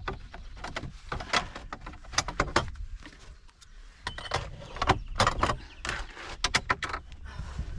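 Boat oars being laid into a car boot under an outboard motor: a run of irregular knocks and clatters, with the busiest stretch between about five and seven seconds in.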